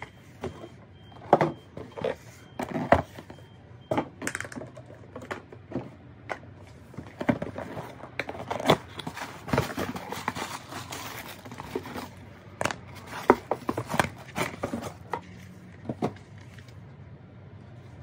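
Handling sounds of an unboxing: a series of sharp knocks and taps as sandals and a cardboard shoebox are set down and moved on a wooden tabletop, with a stretch of rustling in the middle as the box is opened.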